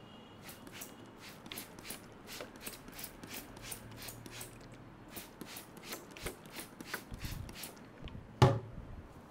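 Hands massaging a head, a quick run of soft rubbing and tapping strokes on scalp and hair, then one loud, sharp impact about eight and a half seconds in.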